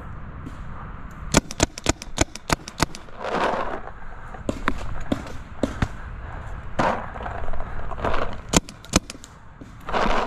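Paintball markers firing: a quick string of about eight shots in a second and a half, then scattered single shots, with a few short bursts of rushing noise in between.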